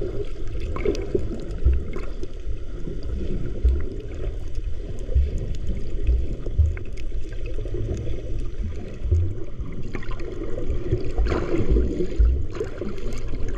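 Sea water sloshing and gurgling around a camera held in the water at a coral reef. The sound is muffled, with irregular low thumps and scattered small clicks, and swells briefly near the end.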